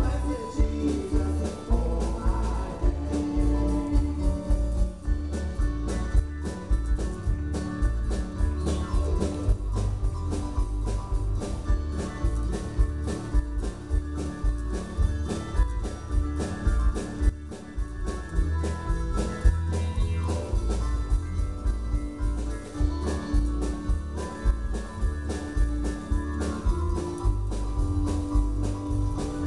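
Live country-gospel band playing an instrumental passage: guitars, fiddle, keyboard and drum kit, with a steady beat.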